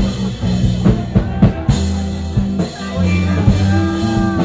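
Live rock band playing, with a drum kit hitting repeatedly over sustained low bass notes.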